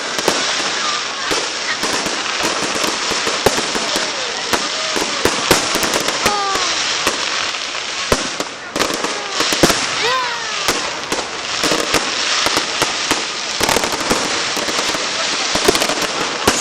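Fireworks going off: rapid crackling and popping bangs over a steady hiss, with a few short falling tones.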